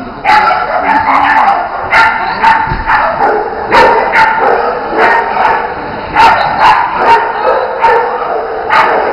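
A dog barking over and over, short sharp barks coming about every half second to a second.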